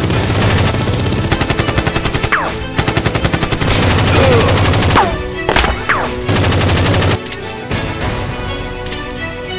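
Long bursts of rapid automatic gunfire sound effects, with a few falling whines among the shots, over background music. The firing stops about seven seconds in, leaving the music.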